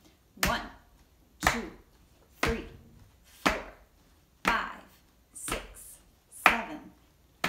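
Feet stamping on a wooden floor in a steady beat, about one stamp a second, seven in all, each with a sharp slap and a low thud, counting out a chant.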